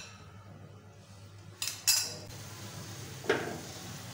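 Spoon clinking and knocking against a non-stick frying pan as chunks of marinated chicken are stirred in hot oil: two sharp clinks a little past halfway and a duller knock near the end.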